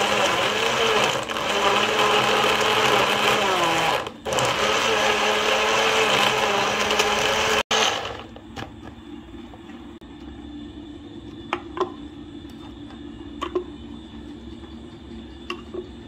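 Electric blender running at speed, blending kale and fruit into a smoothie, its motor pitch wavering. It cuts off abruptly about halfway through. After that only a low steady hum remains, with a few light clicks.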